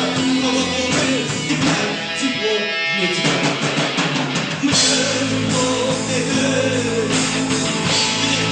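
Rock band playing an instrumental passage with drum kit and electric guitar. The band thins out briefly, with the low end dropping away about two seconds in, then comes back in full.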